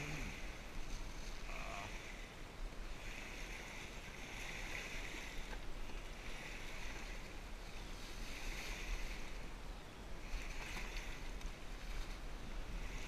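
Wind buffeting the microphone over small waves lapping at the shoreline, with soft swishes recurring every second or so as rope is pulled and unwound from the furled sail cloth.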